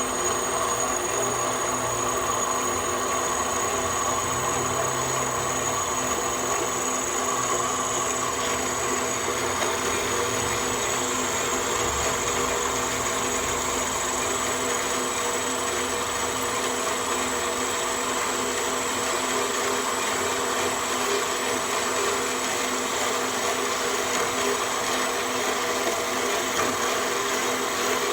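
Bandsaw running steadily through a cut in a threaded workpiece, an even machine noise with a thin steady high whine over it.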